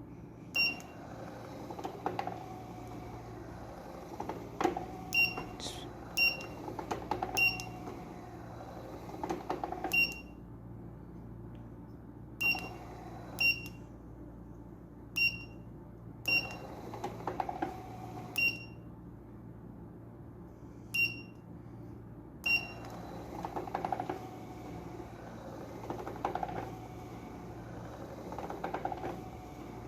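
Foot massager's control unit giving short, high beeps, about fourteen at uneven intervals, as its buttons are pressed. Underneath, the repaired massager's motor and mechanism run with a steady hum and an uneven whirring that rises and falls.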